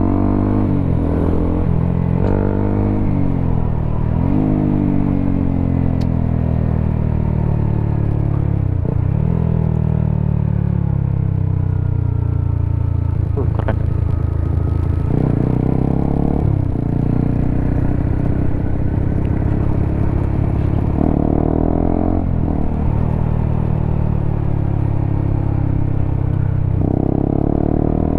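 Honda CBR motorcycle engine through a WRX K3 oval aftermarket exhaust while riding. The revs rise at first, then fall in a long slow slide as the bike coasts off the throttle. Later the revs jump up sharply three times as the throttle opens again.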